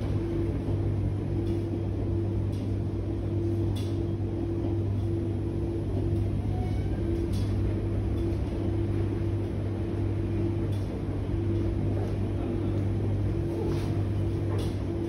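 Electrolux W4250S washer-extractor in its prewash, tumbling a double duvet and sheets in the drum, with a steady low hum and a mid-pitched tone that comes and goes every second or so.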